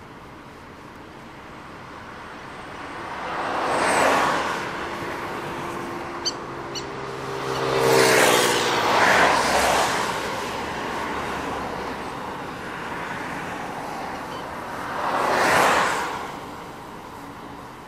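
Road traffic: cars passing close by one at a time, about four passes, each swelling and fading away. The pass near the middle carries an engine tone that drops in pitch as it goes by.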